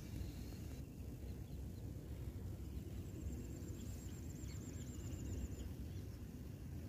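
Faint outdoor ambience: small birds calling over a steady low rumble. About three seconds in comes a quick run of repeated high chirps lasting a couple of seconds, with a few lower calls before and after.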